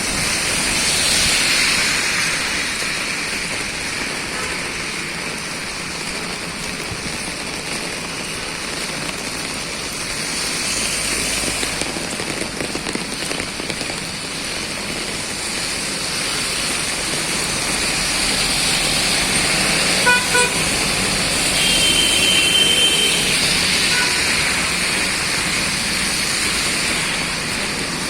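Steady hiss of rain mixed with passing road traffic. There is a sharp click about twenty seconds in, and a short, high, steady beep shortly after.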